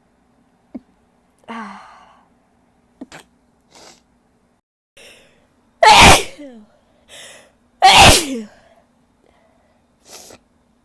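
A woman's gasping inhales building up, then two loud sneezes about two seconds apart, each ending in a voice that falls in pitch, followed near the end by a short breath.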